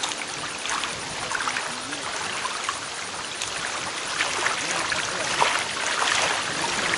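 Water lapping and splashing: a steady rushing noise with many small splashes through it.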